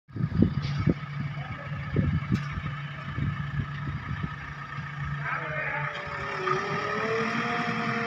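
JCB backhoe loader's BS4 diesel engine running with a steady low hum while it levels soil with the front bucket, with a few knocks in the first two seconds. From about five seconds in, a higher, wavering sound rises over the engine.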